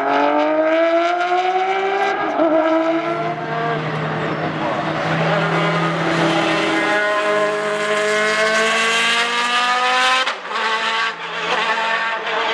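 Racing GT car engines at high revs, first a Porsche 996 GT3 RS flat-six and then a Lamborghini Murciélago R-SV V12, the pitch climbing as each accelerates. There is a sudden break in the sound about ten seconds in, after which the engine note carries on more steadily.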